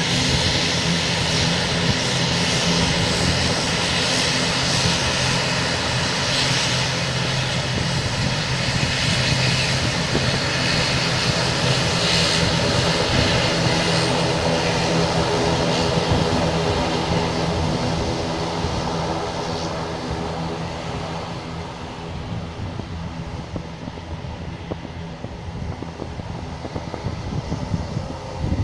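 Twin turboprop engines of a LIAT ATR airliner running with a steady propeller drone and hum, fading somewhat over the last ten seconds.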